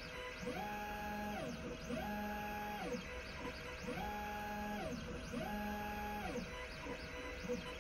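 Stepper motors of a Flying Bear Laserman laser engraver driving the laser head back and forth while it engraves. Each pass is a whine that rises in pitch, holds, then falls, repeating about every second and a half over a steady faint hum.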